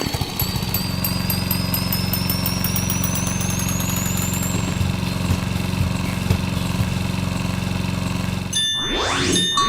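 A steady low mechanical drone, with a thin whistle rising slowly in pitch over the first few seconds. Near the end it gives way to quick rising boing-like sound effects.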